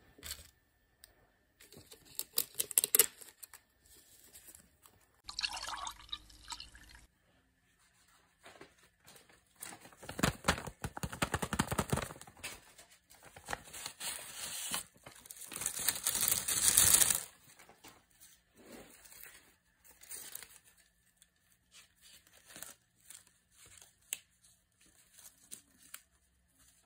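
Paper and cardboard being handled: rustling, crinkling and tearing in irregular bursts, busiest and loudest through the middle, with scattered light taps and rustles before and after.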